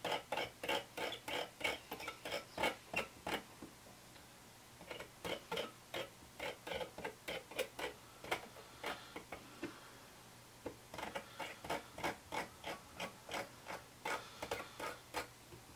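Rapid clicking of a Coil Master 521 Tab's fire button, about three clicks a second in three runs with short pauses, as a freshly built coil is pulsed to clear hot spots.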